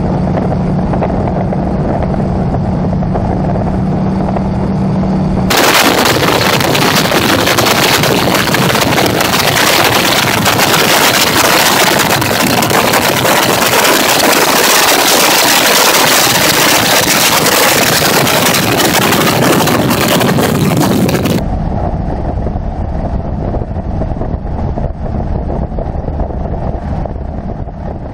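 An SNJ-2's Pratt & Whitney R-1340 radial engine droning in flight with a steady hum, heard muffled from inside the cockpit. About five seconds in, the sound cuts abruptly to a louder, harsher rush of wind and engine noise from an outside camera. It cuts back to the duller drone about sixteen seconds later and fades out near the end.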